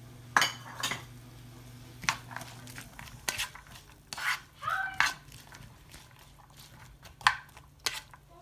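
Onions and garlic being stirred in a hot pan, with a utensil knocking and scraping against the pan at irregular moments, about nine times.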